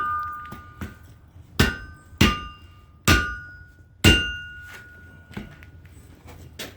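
Blacksmith's hammer striking hot steel on an anvil: about five irregularly spaced blows with a couple of lighter taps between, each blow leaving a ringing tone. The smith is tapping a seam closed to forge-weld the billet.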